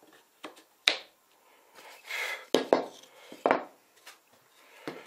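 Wooden frame parts being handled and pushed together at a corner joint: several sharp wooden knocks and a brief scraping rub as the pieces slide onto loose tenons.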